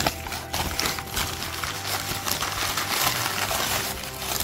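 Crumpled newspaper rustling and crinkling as hands pull it open to unwrap a fossil.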